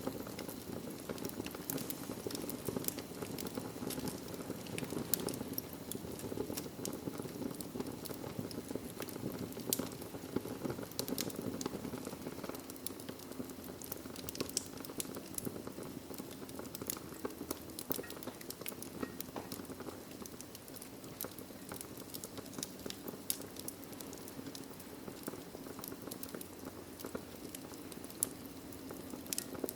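Wood fire crackling in a fireplace: many small sharp pops and snaps, irregularly spaced, over a steady low rush of burning.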